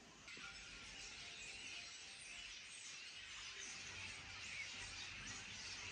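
Faint outdoor ambience: a steady hiss that starts suddenly just after the beginning and slowly grows a little louder.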